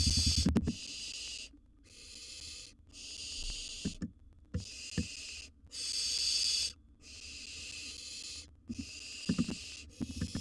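Barn owl nestling giving its rasping, hissing begging call, the 'snoring' of barn owl chicks, over and over: each hiss lasts about a second, with short gaps between. Low knocks and scuffles come at the start and again near the end.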